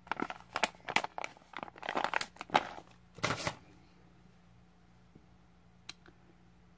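Small plastic zip-lock bag crinkling and rustling in the hands as it is opened and handled, in a quick run of sharp crackles. The crinkling stops about halfway, leaving only a single small tick near the end.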